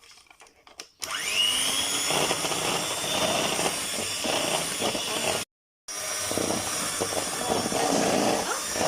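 Electric mixer starting up with a rising whine about a second in, then running steadily as it creams butter and sugar together; the sound drops out for a moment a little past halfway.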